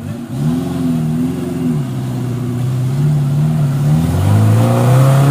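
Suzuki four-wheel-drive's engine revving hard under load as it climbs a muddy creek bank. The note rises, holds, drops back about two seconds in, then climbs again near the end.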